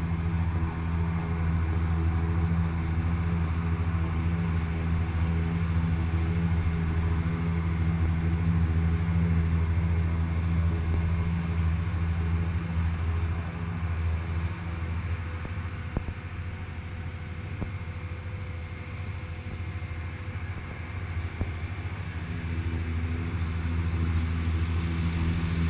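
Farm tractor engine running steadily with a deep hum. It goes quieter for several seconds in the middle and comes back up near the end.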